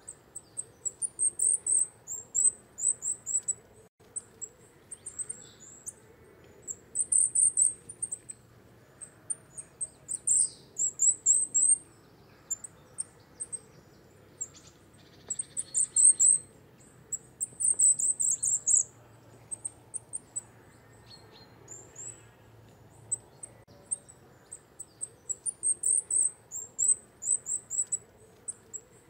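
Common kingfisher calling: runs of short, shrill, very high-pitched piping notes, several a second, in bursts with short pauses between.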